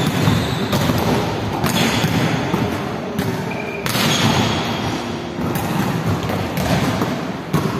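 Volleyballs being struck and bouncing on a hard court floor: a string of sharp slaps and thuds, one every second or two, echoing in a large hall over a steady din of activity.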